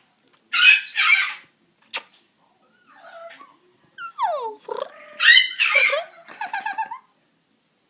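Pet parrot calling: harsh high squawks, two falling whistled notes about four seconds in, and a quick run of chattering notes near the end.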